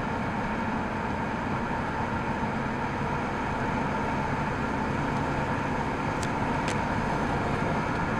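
Steady road and engine noise of a car driving, heard inside the cabin, with two short faint ticks about six seconds in.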